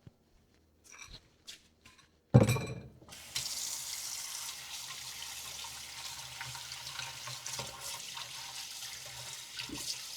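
A loud knock a little over two seconds in, then water running steadily from a tap into a sink.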